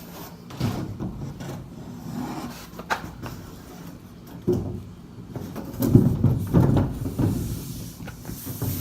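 Wooden boards knocking and thudding irregularly as they are handled and set in place, loudest about six to seven seconds in.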